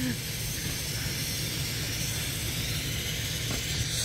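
Steady seaside ambience of surf and wind: a continuous hiss over a low rumble.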